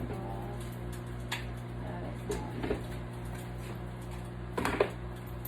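Microwave oven running with a steady low hum while it reheats food. A few light clicks and knocks of handling sound over it, the loudest pair a little before the end.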